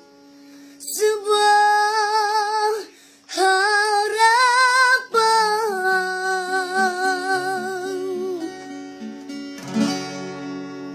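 A girl singing long held notes with wavering vibrato, climbing in pitch midway, over plucked acoustic guitar; the voice stops a little before the end while the guitar goes on.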